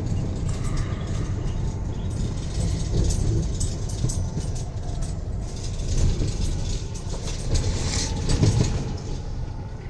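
Inside the cab of a 2021 Peterbilt 337 truck on the move: the diesel engine runs at about 1,200 to 1,500 rpm under a low, steady road and tyre rumble. A few short knocks and rattles come through, the loudest near the end.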